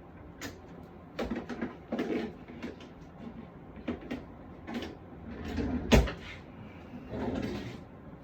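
Rummaging: a string of short knocks and clatters like cupboards and drawers being opened and shut, with one louder bang about six seconds in.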